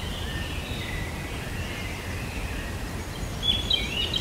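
Outdoor nature ambience: a steady background hiss with faint bird chirps, and a few clearer chirps near the end.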